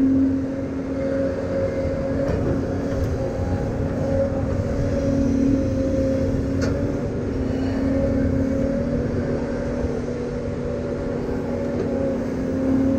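Construction machine's engine running steadily under work, its hum wavering slightly in pitch and level, with a faint tick about six and a half seconds in.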